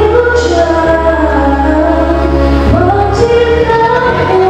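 A woman singing into a handheld microphone over a backing track, holding long notes that slide from one pitch to the next.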